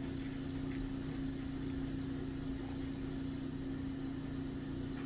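Steady machine hum holding a constant low tone, with no change in pitch or level.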